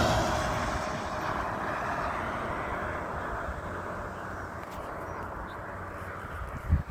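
A road vehicle passes and fades away into the distance, leaving a steady, quiet hiss. A short thump comes near the end.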